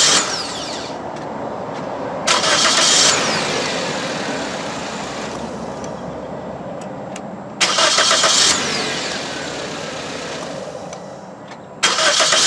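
2006 Toyota Corolla S four-cylinder engine starting on a newly installed replacement starter motor and running. Four short, loud bursts come a few seconds apart, and each eases off gradually into steady running. The sound shows the new starter cranks the engine and it fires.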